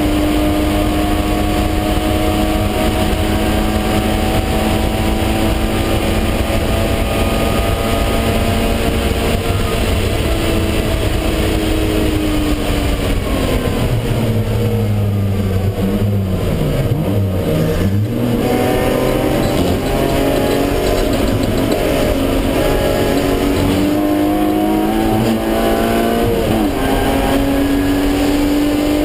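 BMW E36 M3's straight-six engine at high revs inside the car's cabin, pulling steadily with its pitch slowly rising. About halfway through the revs fall and jump in a few quick steps, then climb again, with another short dip near the end, over steady wind and road noise.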